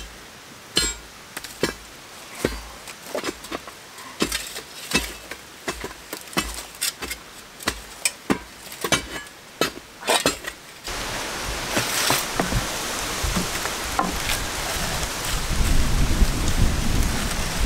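A long steel bar tamping backfill soil around a cardboard concrete form tube, with irregular dull strikes about one or two a second. About eleven seconds in these give way to a steady rustling of dirt and dry leaves being handled at the hole.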